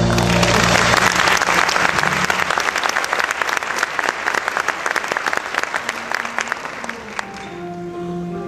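Audience applause: dense clapping that starts as the song's last held notes end and thins out about seven seconds in, when music begins again near the end.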